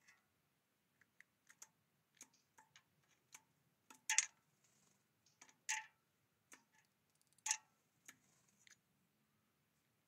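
Great tit's feet and beak tapping and clicking on a metal feeder tray and its wooden food box as it hops about and pecks: scattered, irregular light clicks, the loudest about four, five and a half and seven and a half seconds in.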